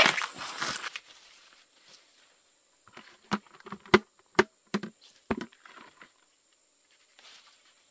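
Corn leaves and husk rustling for about a second, then a run of about seven sharp snaps and cracks from the corn plants being handled and pushed through, with a faint rustle near the end.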